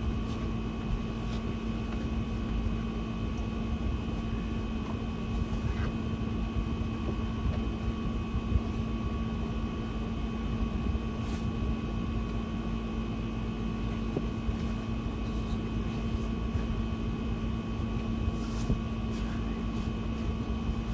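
Steady machine hum, a low rumble with a few constant tones, with a few faint rustles and clicks from a bed sheet being handled.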